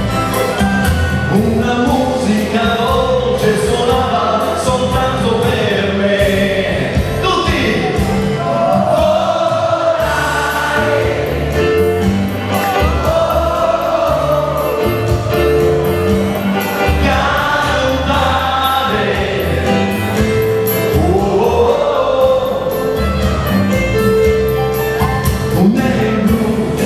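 A man singing an Italian pop song live into a microphone while playing an electronic keyboard, over full accompaniment with a steady beat.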